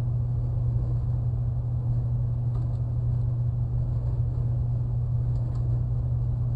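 Steady low hum with a few faint light clicks as the chop saw's metal fence is set and adjusted by hand.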